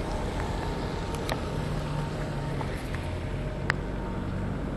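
Steady street traffic noise on a rain-wet road, a low rumble and hiss, with a few light taps or clicks.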